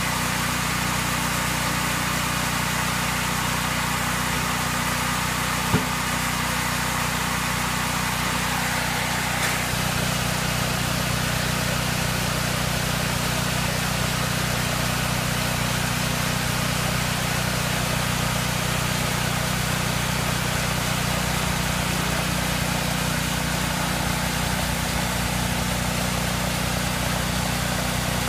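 Band sawmill's engine running steadily, with one sharp click about six seconds in.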